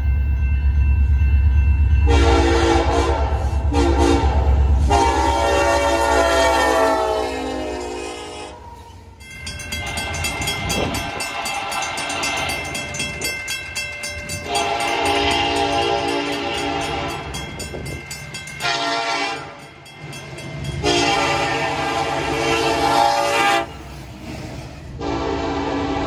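Nathan K5LLA five-chime locomotive horn sounding a series of long blasts and one short blast, each a loud sustained chord. A low locomotive rumble lies under the first blasts.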